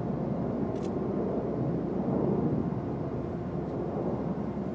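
Distant F-35B Lightning II fighter jet on approach, its engine a steady low rumble that swells slightly near the middle.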